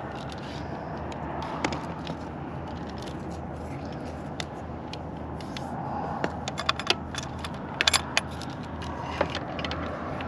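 Scattered light clicks and scrapes of solar wiring leads being handled, most of them about six to eight seconds in, over a steady low hum and noisy background.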